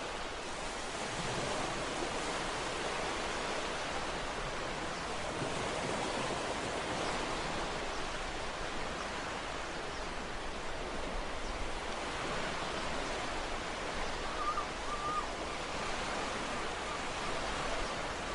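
Ocean surf washing steadily as a continuous wash of noise, with a brief faint wavering call about fourteen seconds in.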